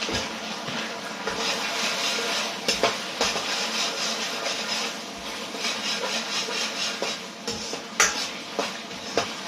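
Sauce bubbling and sizzling in a hot wok: a steady, crackling hiss, broken by a few sharp clicks, the loudest about eight seconds in.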